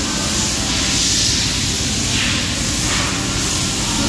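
Compressed air hissing in short bursts, about a second in and again around two and three seconds in, over a steady low rumble of shop noise.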